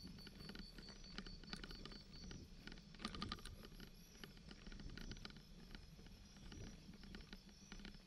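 Bicycle rolling over a bumpy dirt track: a low rumble with scattered clicks and rattles, loudest in a cluster about three seconds in. A faint, high, quickly pulsing tone runs through the first two seconds.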